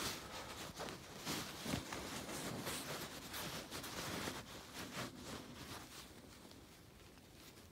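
Faint rustling and scattered light clicks from hands working an orange tubing-pliers tool on a 3/16-inch plastic sap drop line close to the microphone. It dies down over the last couple of seconds.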